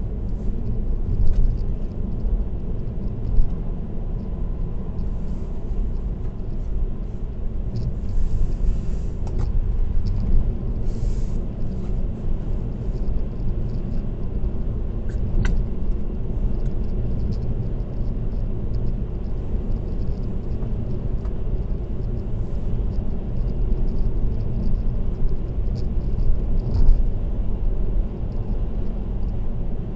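Steady road and tyre noise with a low rumble from a car cruising on an expressway, heard from inside the cabin through a dashcam, with a few faint ticks scattered through.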